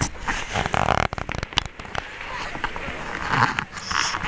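Voices of people in a crowd, with a quick run of sharp crackles and clicks about a second in.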